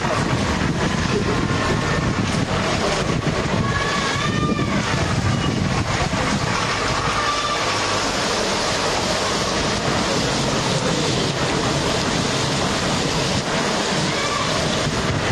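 Heavy rain pouring down on a street, with rainwater running along the road: a steady, dense hiss.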